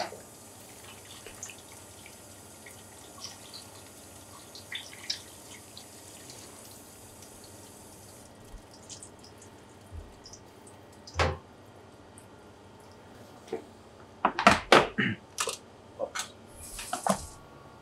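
Tap water running faintly and splashing as cuttlefish tentacles are rinsed under it, with small drips and ticks; the water stops a little before halfway. After that come a few sharp knocks and cloth rubbing on the wet wooden board, the loudest knocks in a quick cluster late on.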